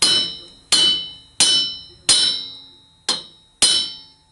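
Six sharp, ringing metal blows on a steel seat driver, about two-thirds of a second apart, driving a valve seat insert into the counterbore of a Honda CB77 cast cylinder head. The ring of each blow is how the machinist tells when the seat has bottomed.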